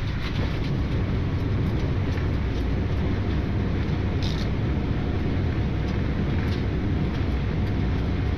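Boeing 787-9 rolling out on the runway just after touchdown, heard from the cockpit: a steady low rumble of the wheels on the runway and the engines in reverse thrust.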